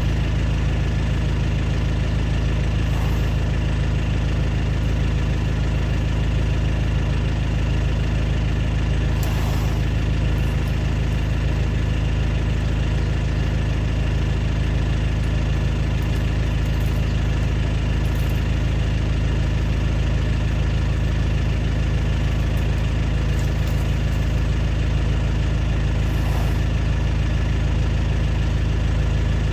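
A vehicle engine idling steadily: a low rumble with constant tones above it, unchanging throughout. A few faint, brief crackles come and go over it.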